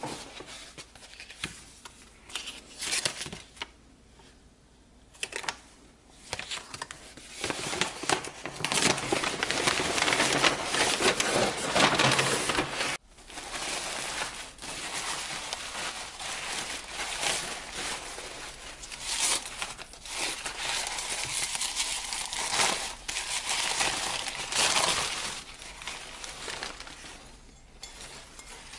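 Paper packaging crinkling and rustling in uneven bursts as a parcel is unwrapped by hand: a kraft paper bag, then white tissue paper. The busiest crinkling comes a third of the way in.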